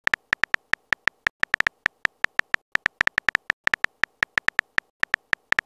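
Simulated phone-keyboard key clicks from a texting-story app as a message is typed: a quick, uneven run of short, beep-like clicks, about seven a second.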